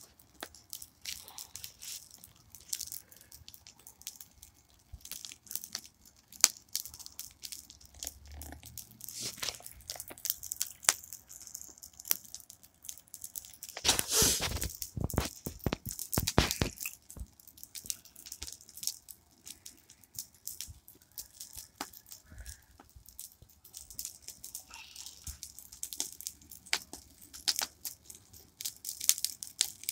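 Campfire of dry tree limbs and branches crackling, with irregular sharp pops and snaps. About halfway through, a few seconds of louder rushing noise.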